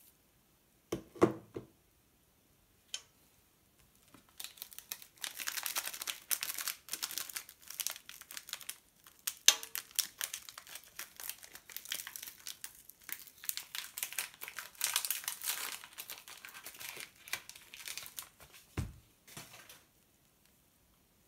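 Plastic wrapper of a hazelnut wafer biscuit crinkling and rustling as it is opened by hand. A short knock comes about a second in and a low thump near the end.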